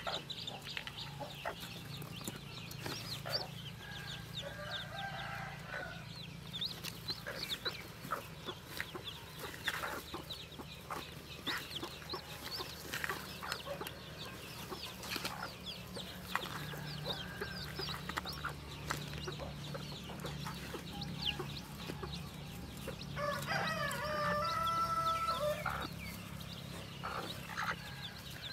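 Newly hatched chicks peeping in quick, high chirps, with a broody hen clucking in the nest. A rooster crows twice, faintly about four seconds in and louder near the end; the second crow is the loudest sound.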